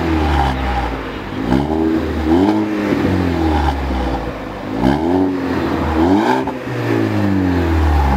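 Ford ST hatchback's turbocharged four-cylinder revved in the driveway, several quick blips, each climbing and falling back, heard from the tailpipe. It breathes through a new Magnaflow straight-through race muffler fitted in place of the resonator on stock-size piping, which gives it an exhaust note.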